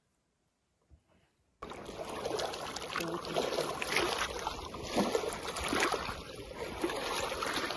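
Lake water lapping and splashing with a steady rush of noise, starting abruptly about a second and a half in after near silence.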